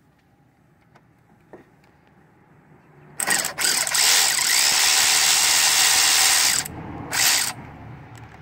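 Cordless DeWalt ratchet's motor running on a bolt, backing it out: a short burst about three seconds in, then a steady run of about three seconds, and one more brief burst near the end.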